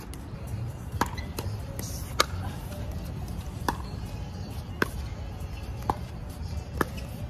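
Pickleball rally: paddles striking a hard plastic ball, six sharp pops about a second apart, the loudest about two seconds in.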